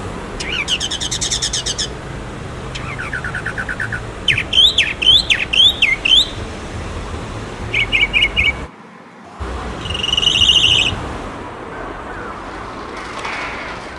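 A string of bird calls in short separate bursts: rapid trills, then a run of sweeping up-and-down chirps and quick repeated chirps. The calls stop for a moment about nine seconds in, and one more trill follows, all over a steady low background noise.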